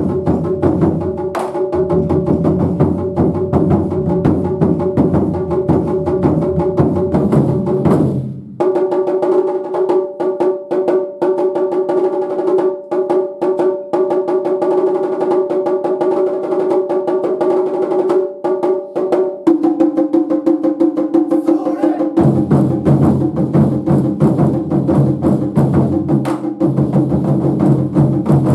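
Japanese taiko ensemble drumming: fast, dense strikes with no pause. The deep drums drop out about eight seconds in, leaving the higher drums playing, and come back in again near the last third.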